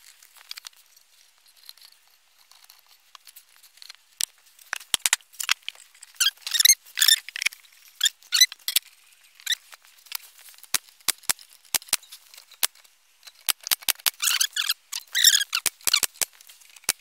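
Wooden Langstroth hive-box sides being fitted together by hand at their finger-jointed corners: sharp wood-on-wood knocks and clicks, with a run of squeaking about six seconds in and another near the end as the glued joints are pressed home.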